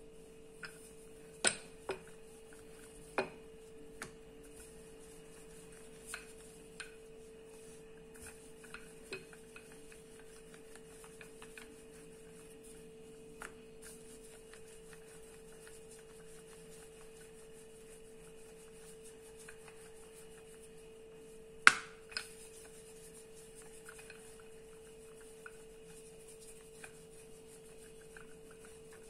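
Wooden rolling pin rolling out roti dough on a floured countertop: scattered light clicks and knocks of the pin against the surface, with one louder knock a little past the middle. A steady faint hum runs underneath.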